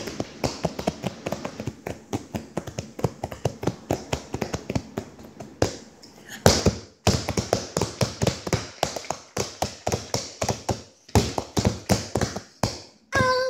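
Rapid tapping on a hard surface right by the microphone, several quick taps a second, breaking off briefly about six seconds in before carrying on.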